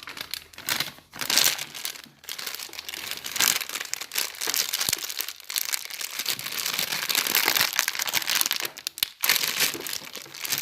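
Cornstarch packet crinkling and rustling as it is handled to put the cornstarch in, in stretches with a few short breaks.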